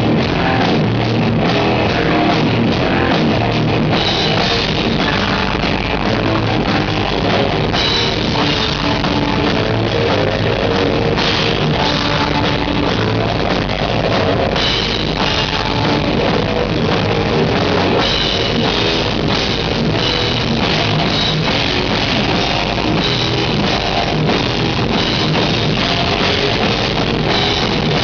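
Death metal band playing live and loud: a drum kit and distorted electric guitars in a dense, unbroken wall of sound.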